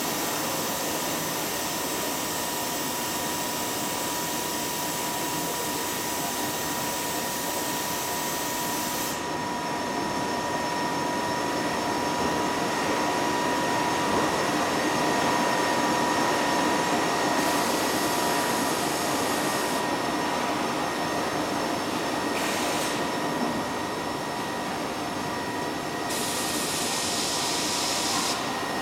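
Industrial wide-format inkjet printer running: a steady whir of fans and drives with a constant high tone. A hiss on top thins out about a third of the way through and returns in patches.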